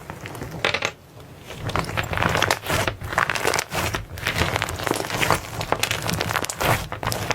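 Hands squishing and pressing slime, a steady run of crackles and small pops.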